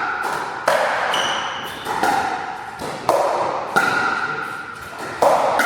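Pickleball rally: paddles striking a plastic pickleball, about five sharp pops with a ringing echo after each in a large hall.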